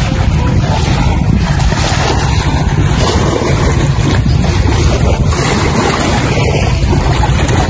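Steady loud rushing and buffeting of wind on the microphone, heaviest in the low end.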